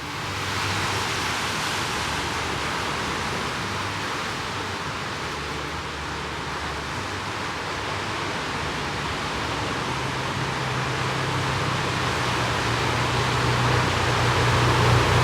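Waimea Falls, a 45-foot waterfall, pouring into its pool as a steady rush of water, growing slightly louder near the end.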